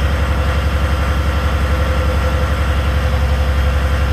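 Boat engine running steadily with a rapid, even pulse, driving a MEPS engine-driven generator.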